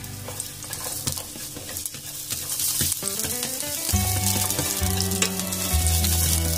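Sliced garlic frying in hot cooking oil in a pan, a crackling sizzle that grows louder partway through. Background music with low notes comes in about four seconds in.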